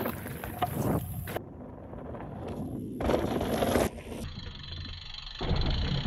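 Electric mountain bike's tyres rolling and crunching over a rocky dirt trail, the sound changing abruptly several times as the shots cut.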